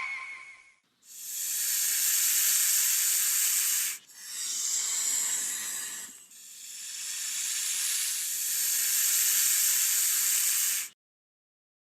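A steady high hiss in three stretches, the first two breaking off suddenly and the last cutting off abruptly about a second before the end.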